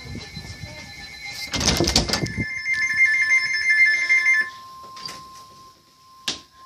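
First Alert SFA1150 weather radio sounding an Emergency Alert System warning. Buzzy, rapidly chattering pairs of tones near 2 kHz, the SAME data header, are broken by a loud noisy burst about a second and a half in. After that a single steady warning tone near 1 kHz sounds, and a sharp click comes near the end.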